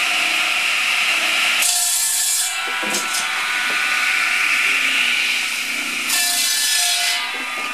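Homemade firewood chop saw: a 24-inch circular blade driven by a 220-volt electric motor, spinning with a steady whine. It cuts through log twice, each cut a loud hiss of about a second, the first about a second and a half in and the second about six seconds in.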